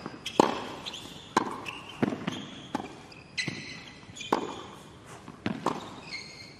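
Tennis rally on a hard court: a ball struck back and forth by racquets and bouncing, a sharp hit about every second, with sneakers squeaking on the court surface between shots.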